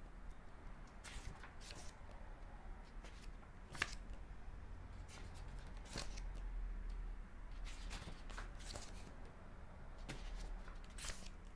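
Pages of a softcover book being turned and flipped by hand: paper rustling and page flicks, with one sharper snap of a page about four seconds in.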